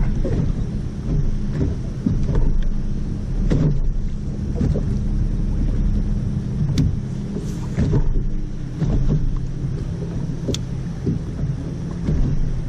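Wind buffeting the microphone on a bass boat over a steady low hum from its electric trolling motor, with two sharp ticks later on.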